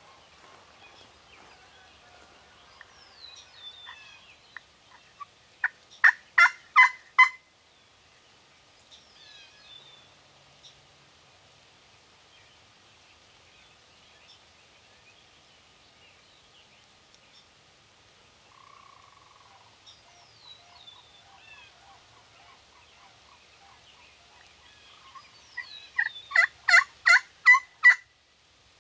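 Turkey yelping: a run of about six loud, evenly spaced yelps about six seconds in, and a longer run of about eight near the end, with faint bird chirps and a few soft short notes in between.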